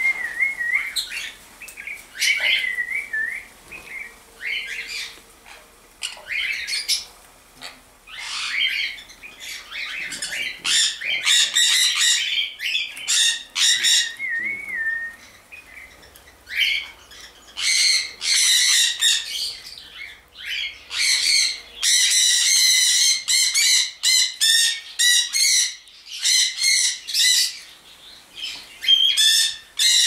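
Sun conures screeching: repeated shrill, harsh calls in quick runs, coming thicker from about ten seconds in, with a few wavering whistled chirps in the first half.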